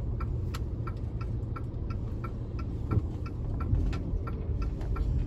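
Car turn-signal indicator ticking steadily, about two to three clicks a second, over the low hum of the engine and the tyres, heard inside the cabin.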